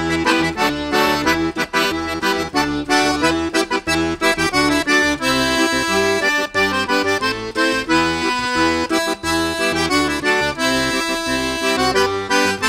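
Instrumental music with a quick, steady rhythm.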